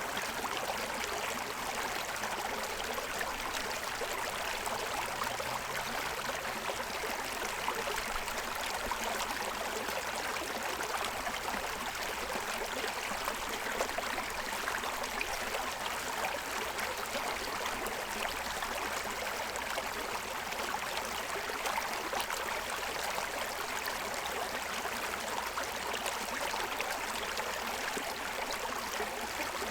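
Shallow stream running over the stones of its bed, a steady rush and gurgle of water.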